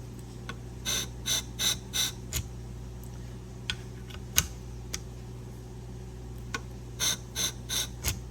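Scissor-sharpening machine's motor humming steadily, with a run of four or five short scraping contacts about a second in and another run near the end, as the blacked-out scissor blade is touched to the spinning 240-grit diamond wheel in a scratch test to check the bevel angle.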